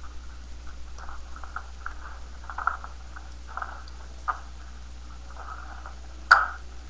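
Small plastic Bionicle-style building pieces handled and snapped together: scattered soft rustles and light clicks, with one sharp, louder click about six seconds in. A steady low hum runs underneath.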